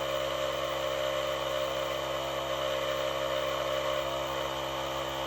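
Portable jump-starter air compressor running steadily as it pumps up a flat tire, a constant mechanical hum and whir with no change in pitch.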